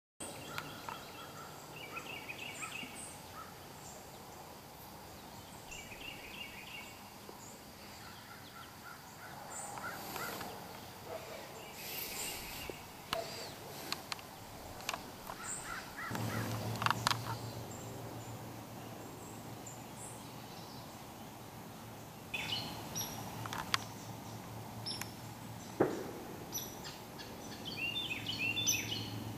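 Woodland ambience with birds calling: short clusters of quick repeated chirps, a few sharp clicks and knocks, and a low steady hum that comes in about halfway.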